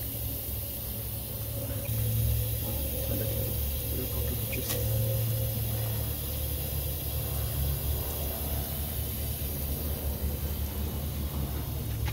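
Water spraying steadily from pressurised drip-irrigation drippers and a leaking branch-off onto a wooden deck, over a continuous low rumble.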